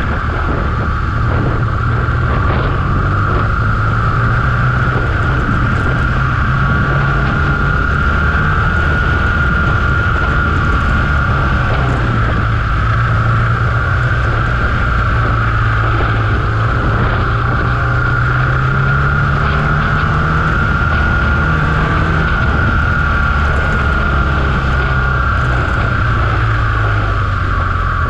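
BMW R1200GS Adventure's boxer-twin engine running at a steady road pace, its note rising and falling gently with the throttle. Wind rushes over the bike-mounted camera's microphone, with a steady high hum.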